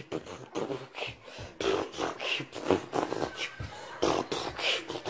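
A person beatboxing a quick rhythmic beat of breathy mouth-percussion strokes, about three to four a second.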